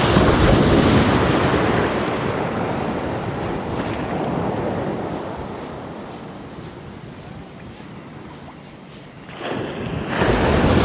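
Small ocean waves breaking and washing in the shallows: a loud rush of surf that slowly subsides over several seconds, then swells again as the next wave breaks near the end.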